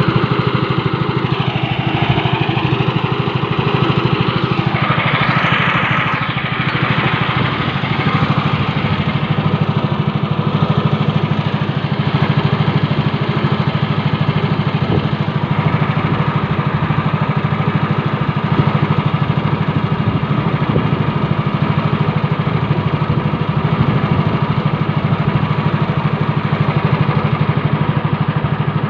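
A small engine running steadily and loudly, with some wavering in pitch in the first several seconds.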